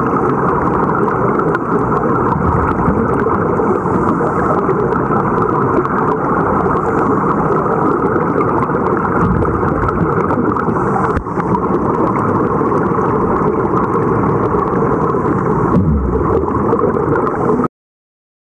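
Steady muffled underwater rushing and bubbling from the air streaming out of helmet-diving helmets; it cuts off abruptly near the end.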